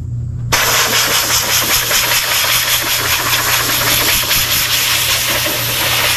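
Compressed-air blow gun hissing steadily as it blows out a tractor's air filter element, starting abruptly about half a second in. A steady low hum runs underneath.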